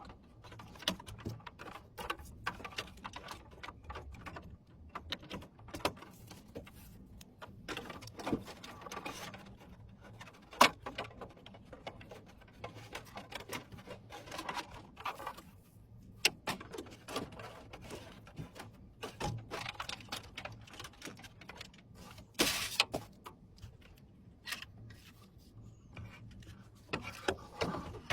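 Scattered small clicks, taps and knocks of PC parts and screws being handled during assembly, with one sharper knock about ten seconds in.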